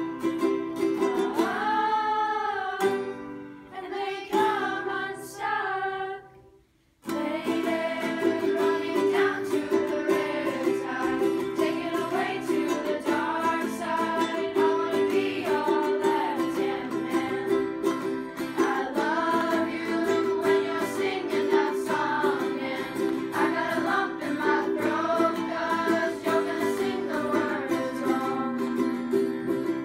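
A group of young students singing with ukulele and acoustic guitar strumming along. About six seconds in the sound goes quieter and cuts out for a moment, then the full group and both instruments come back in.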